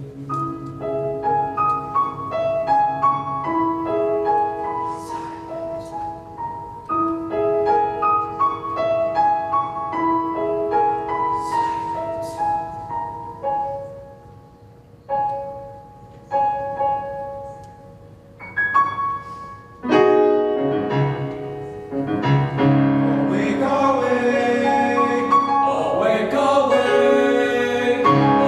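Grand piano playing a flowing pattern of single notes that thins out to a few isolated notes, then a boys' choir comes in with the piano about two-thirds of the way through and sings on, growing fuller and louder.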